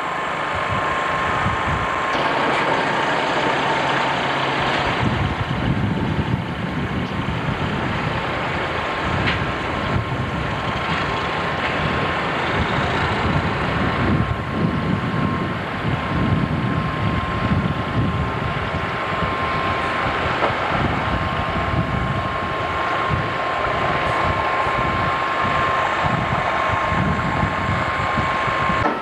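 Heavy low-loader lorry's diesel engine running steadily, with a thin steady high tone heard over it throughout.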